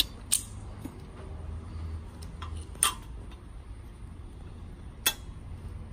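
Sharp metallic clicks and clinks of pliers working a spike off aluminum landscape edging and fitting it into the edging's slot: three loud clicks a couple of seconds apart, with fainter ticks between, over a low rumble.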